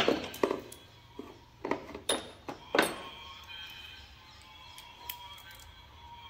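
Steel hand tools clinking together: a socket, extension bars and a ratchet knocked against one another as they are handled, a quick series of sharp metallic clinks over the first three seconds, then quieter.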